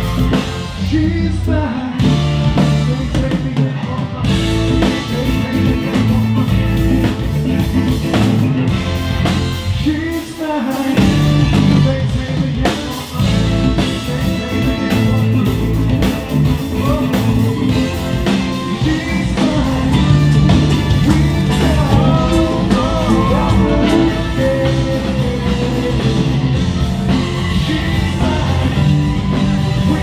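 Rock band music with drum kit, guitar and a singer.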